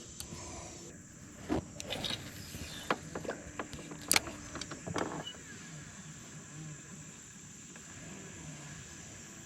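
Handling noises from fishing gear on a boat: a handful of short, sharp clicks and knocks through the first half. After that only a faint steady background remains.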